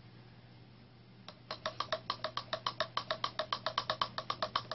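Rapid, evenly spaced clicking or tapping, about seven clicks a second, starting about a second in and keeping the same steady beat throughout.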